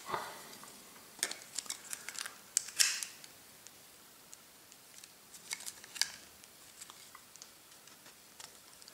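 Scattered light clicks and taps of plastic parts as the white plastic housing of a Honeywell HR92 radiator valve head is gripped and worked apart by hand, with the loudest cluster about three seconds in.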